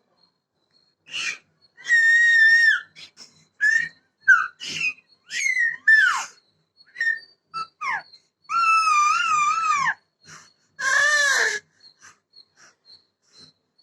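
A baby squealing in play: a run of very high-pitched squeals and short chirps, some gliding down in pitch, with three longer wavering squeals. The longest squeals come about two seconds in and between about eight and a half and eleven and a half seconds.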